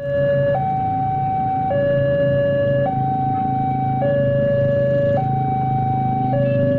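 Two-tone hi-lo warning siren alternating between a lower and a higher note about every second, over a steady low engine rumble.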